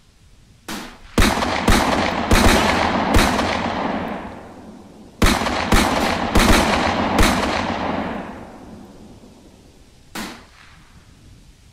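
Gunfire sound effects: one shot, then a volley of about five echoing shots, a second volley of about five shots some five seconds in, and one last, fainter shot near the end.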